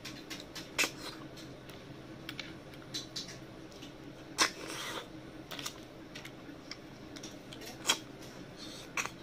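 Close-up mouth sounds of eating rice and river snail curry by hand: wet lip smacks and chewing clicks, the sharpest about a second in, near the end and just before it, with a longer noisy smack about four and a half seconds in.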